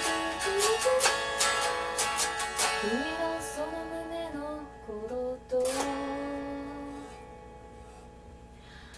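A woman singing to a strummed guitar. The strumming is dense for about three seconds, one more chord rings a little past halfway, and the sound fades low near the end.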